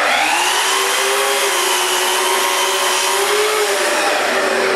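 Sliding compound miter saw spinning up and running as it crosscuts a cedar board, with a dust extractor drawing through the hose alongside. Its whine sags a little during the cut, recovers about three and a half seconds in, and starts to wind down at the very end.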